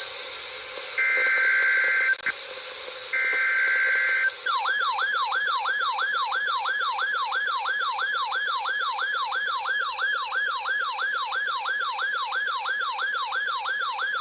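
Emergency Alert System alert received over the radio: two of the header data bursts, each a shrill two-tone screech about a second long. From about four seconds in, a siren-like alert tone repeatedly sweeps downward, about two and a half sweeps a second.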